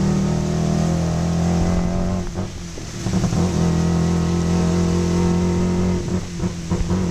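Tuk-tuk engine running steadily under way, heard from the passenger seat. The revs drop off briefly about two seconds in, then pick up again, and near the end the sound turns uneven.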